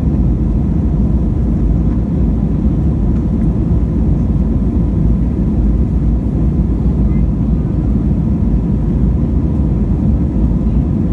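Steady low rumble of jet engines and rushing air heard inside the cabin of a Peach Airbus A320-family airliner climbing out after takeoff, with a faint steady hum over it.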